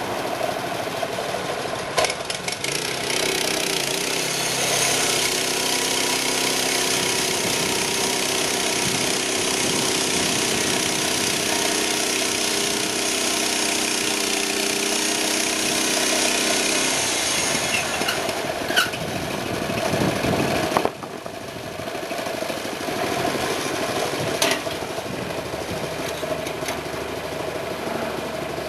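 Portable band sawmill's 6.5 HP Honda GX engine running steadily, with the band blade sawing through wood under load for much of the time. The sound drops abruptly about 21 seconds in.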